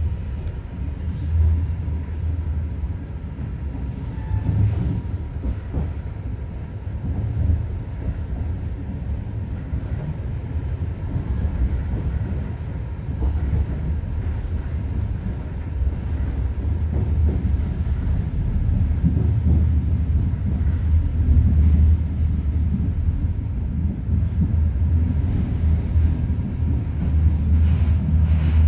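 Passenger train running, heard from inside the carriage: a steady low rumble with faint rattles and clicks, growing a little louder after the midpoint.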